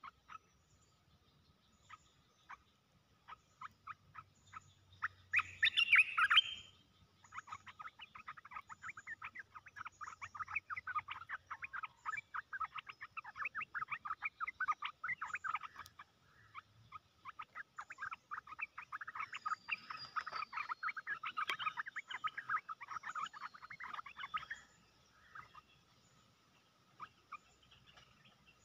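Olive-winged bulbuls chattering in long runs of rapid, harsh calls. There is a loud burst about five seconds in, then near-continuous chatter for most of the rest, dying away near the end. A faint steady high tone sits underneath.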